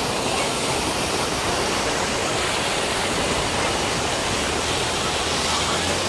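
Water rushing and splashing down a small stone-walled channel cascade, a steady, even roar of falling water.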